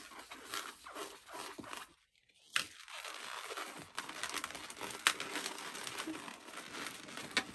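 Latex twisting balloon being twisted into a small bubble and worked into a balloon ball, its rubber rubbing and crinkling under the fingers, with a few sharp clicks.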